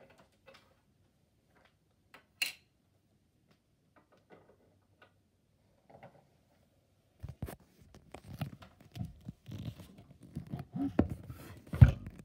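Handling noise of small plastic toy figures being moved about by hand: a few faint clicks and a sharp tick, then from about seven seconds in a busy run of scraping and rustling with knocks, the loudest knock near the end.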